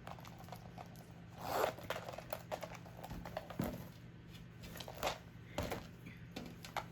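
Light rustling with a swell about a second and a half in, and a few scattered small clicks, as small leather goods and their packaging are handled.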